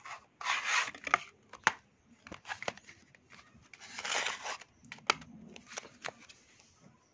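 Paperboard box of oil pastels being opened by hand: papery rustling and scraping as the inner tray slides out of its card sleeve, twice, with a few light taps and clicks as the pastels and tray are handled.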